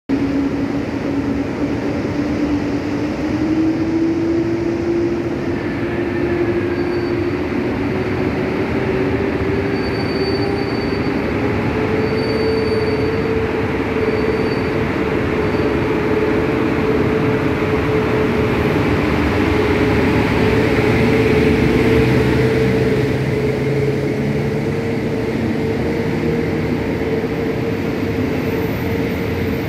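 EP09 electric locomotive accelerating away with a passenger train. A steady electric whine rises slowly in pitch over the first dozen seconds and then holds level, over the continuous rumble of wheels and carriages rolling past.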